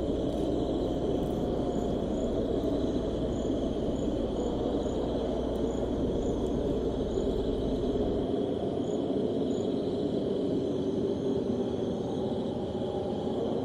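Desert ambience: a steady low rushing noise under a constant high drone of crickets, with scattered short high chirps. A low hum underneath drops out about eight seconds in.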